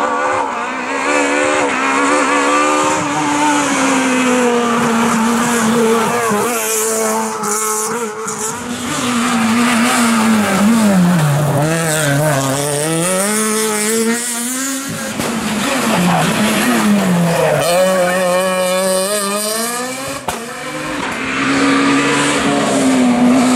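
Rally car engines revving hard and falling back through gear changes, one car after another on a tarmac stage. The sound cuts abruptly to a new car about 15 and 20 seconds in.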